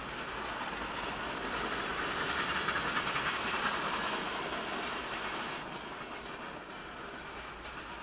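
Norfolk Southern freight train rolling past, its steel wheels clicking rapidly over the rail. The noise swells to its loudest a few seconds in, then eases off.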